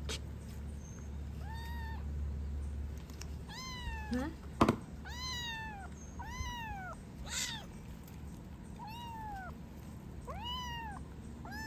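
A small kitten meowing over and over in short mews that rise and fall in pitch, while a baby macaque holds it down. A single sharp click about four and a half seconds in.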